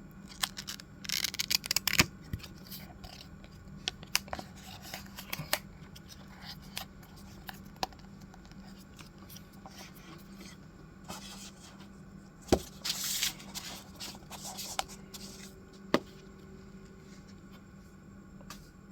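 Stationery and its packaging being handled: scattered clicks and taps, with short rustling bursts about a second in and again past the middle, over a faint steady hum.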